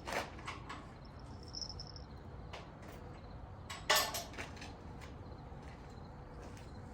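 A few scattered metal clinks and knocks from hand work on the backhoe bucket and its pins, the loudest about four seconds in.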